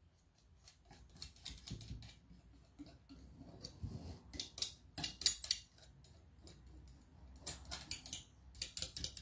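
Small metal palette knife dabbing and scraping gold paint onto the edges of an MDF vase, in several bursts of quick, light taps.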